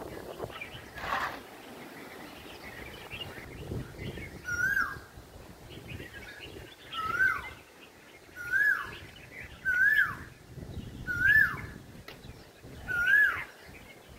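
A bird calling over and over from about four seconds in, each call a single whistled note that rises sharply and then drops, repeated about every second and a half. Underneath, wind rumbles on the microphone in gusts.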